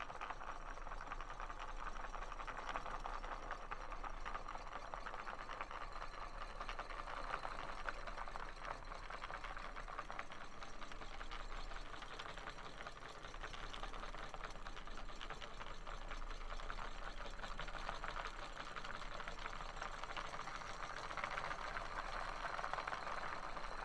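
Handmade 12-volt electromagnetic coil engines driving ice-cream-stick reduction gears and a propeller, running with a rapid, steady mechanical clicking.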